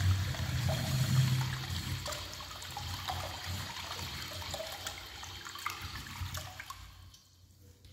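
Urinal flushing from its flush valve: water runs down into the bowl and drains, tapering off to a trickle and stopping about seven seconds in.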